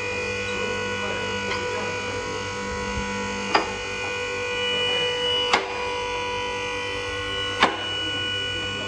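Background music: a steady bed of sustained tones with a sharp hit about every two seconds.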